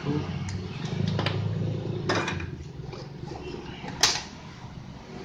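Small clicks and taps of tools and a laptop mainboard being handled on a workbench, with a sharper knock about four seconds in, over a steady low hum.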